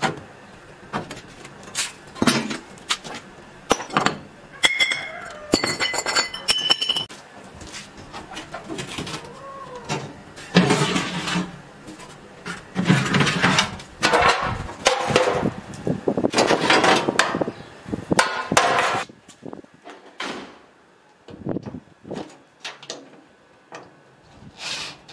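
Sheet-metal and wire parts of an old gas cooker clinking, knocking and scraping as it is taken apart: the hob's wire pan-support grates lifted off, a short squeak about five seconds in, and oven trays scraping as they are pulled out.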